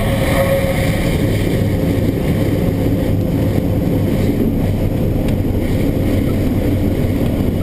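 Single-engine light plane's piston engine and propeller running at low power during the landing rollout, a steady drone mixed with runway rumble, heard from inside the cockpit.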